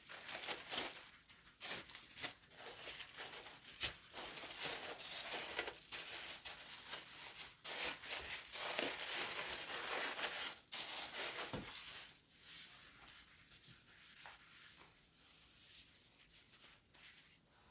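Plastic packaging being handled, crinkling and rustling irregularly; the handling fades to a quieter rustle about two-thirds of the way through.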